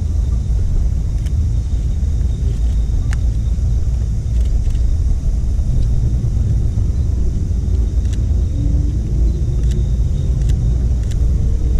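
Steady low rumble with a few scattered clicks. About nine seconds in, a faint rising whine begins as a railway turntable starts to swing the steam locomotive round.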